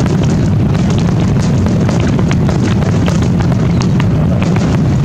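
Fireworks display with many shells bursting at once: a continuous low rumble of booms with frequent sharp crackles and pops over it.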